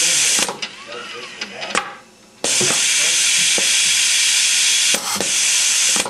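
AccuPlace 3065 adhesive-part applicator cycling as it peels a dome switch array from its liner and places it: a loud steady air hiss that stops twice, with mechanical clicks and a short rising-and-falling whine of a moving axis in between. The hiss drops away for a moment about two seconds in, then comes back until about five seconds in.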